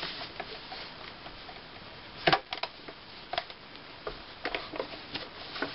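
Scattered light clicks and knocks from a household sewing machine being handled at a stop, as the presser foot is raised and the fabric and piping are pivoted under the needle, with fabric shifting; the machine is not stitching. The loudest click comes about two seconds in.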